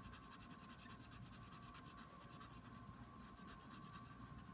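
Colored pencil scratching faintly on paper in rapid, short back-and-forth shading strokes, many a second.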